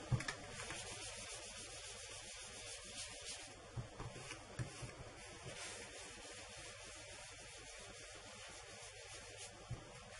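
Small craft sponge rubbed over cardstock in small circular motions to work ink into it: a faint, steady scratchy rubbing with a few light knocks.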